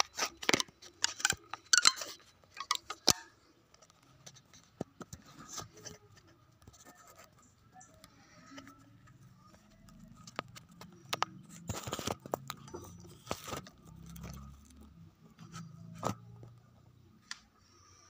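Young goat licking and nosing the phone: irregular close clicks and crackles, densest and loudest in the first three seconds, then scattered clicks over a faint steady tone.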